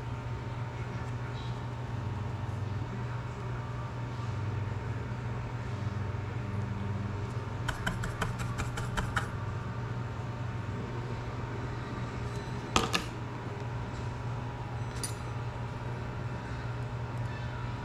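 Steady low room hum, with a quick run of about ten light clicks near eight seconds in and a single sharp knock about thirteen seconds in, from small tools and parts being handled on a workbench.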